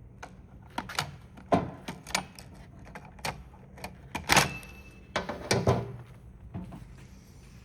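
Irregular clicks and knocks as a printing calculator's parts are handled and pried apart during disassembly, with the loudest knocks about four seconds in and near six seconds.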